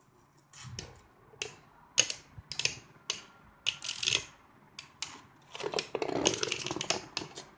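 Two spinning Beyblade tops clashing in a cardboard stadium: a string of sharp clicks as they strike each other, turning into a quick rattling clatter about six seconds in.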